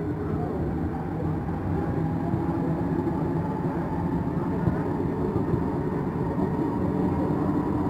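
Metro train running, heard from inside the car: a steady low rumble with a faint steady whine above it.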